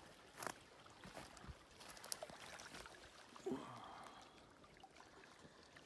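Small waves lapping and splashing faintly against shoreline rocks, with scattered little slaps of water. A short pitched sound, like a brief call or voice, breaks in about three and a half seconds in.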